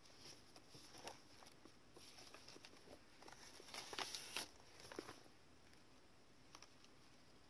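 Faint rustling and light taps of thick, tea-stained paper pages being handled and turned in a handmade journal, loudest about four seconds in.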